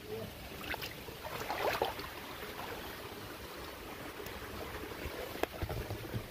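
Water splashing and sloshing in shallow water, with a louder splash about a second and a half in and a few sharp knocks.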